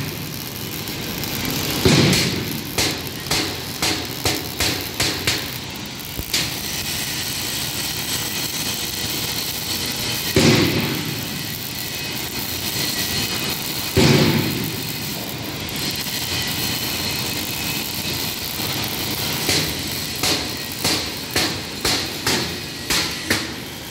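Hammer blows on steel plate, in two quick runs of about two to three blows a second near the start and near the end. Two single heavier clangs in the middle ring on and echo. A steady noisy workshop din runs underneath.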